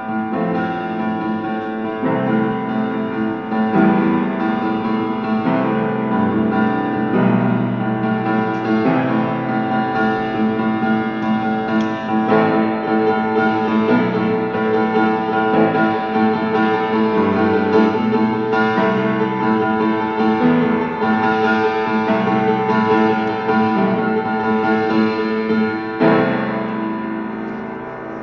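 Solo piano playing a slow piece in held chords, changing every second or two; near the end the playing eases off and a final chord rings and fades.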